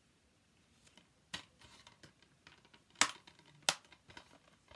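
A few sharp clicks, two louder ones about three and three and a half seconds in, with fainter ticks and soft rustling between.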